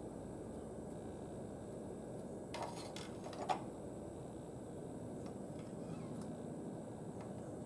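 A few short clicks and light knocks as the oil dipstick of a Kawasaki FR691V engine is handled during an oil-level check, the loudest about three and a half seconds in, over a steady low background hiss.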